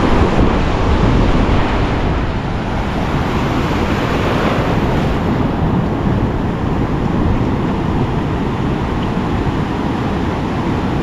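Ocean surf breaking and washing around the legs in the shallows, with steady wind buffeting the microphone.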